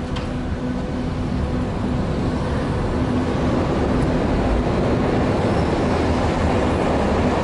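Yellow Berlin U-Bahn train pulling out of the station alongside the platform, its wheels on the rails making a steady rumble that grows louder as it gathers speed.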